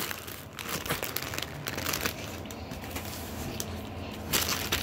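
Plastic snack bags crinkling and rustling as a hand rummages through a box of packaged chips and pretzels, in uneven crackles with a louder rustle near the end.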